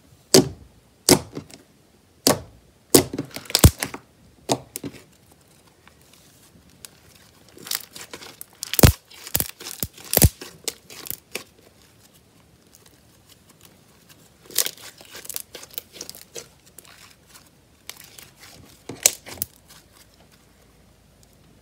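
Slime and soft modelling clay being pressed, pulled and torn apart by hand, giving sharp sticky crackles and tearing sounds in short clusters with quiet pauses between.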